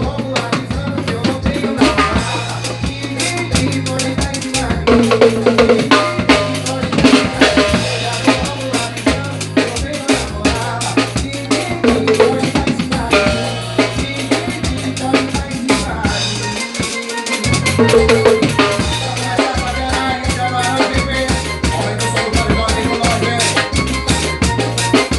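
Music with a prominent drum kit (kick, snare and rimshots) over a steady bass line, keeping a regular beat; the bass drops out briefly around the middle.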